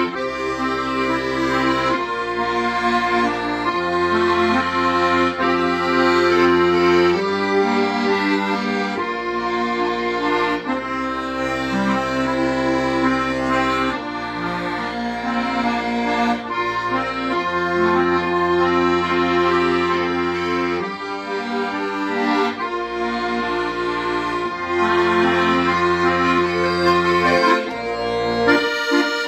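Accordion playing a slow melody over sustained bass notes and chords, the bass changing every couple of seconds.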